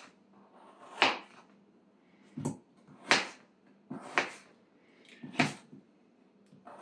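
Kitchen knife cutting potatoes on a cutting board: about six sharp chops, spaced unevenly at roughly one a second, each the blade knocking through onto the board.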